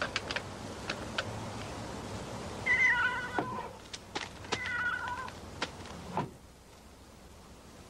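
A domestic cat meowing twice, once about three seconds in and again about a second and a half later, each meow under a second long, with scattered sharp clicks around them.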